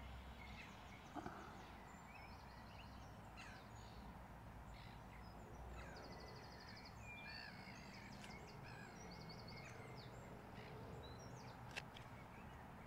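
Faint outdoor ambience of small birds singing and calling in short chirps and trills over a low steady rumble, with one sharp click near the end.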